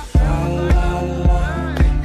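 Music: a beat comes in just after the start, with a kick drum hitting about every half second under sustained pitched parts.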